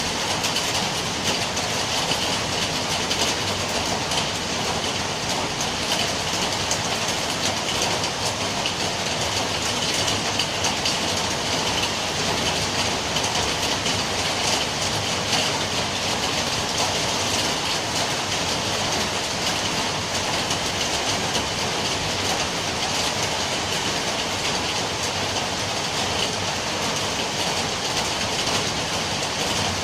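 Steady rain falling, a dense, even patter of drops that holds without a break.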